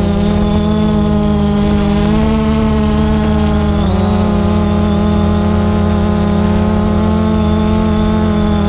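Multirotor camera drone hovering, its electric motors and propellers whirring steadily as a stack of tones, with a brief shift in pitch about four seconds in.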